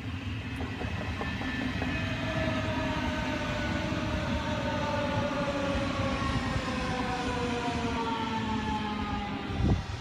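DB Class 425 electric multiple unit passing at close range: the whine of its traction equipment sounds in several tones that fall slowly and steadily in pitch as the train slows, over the rumble of its wheels on the rails.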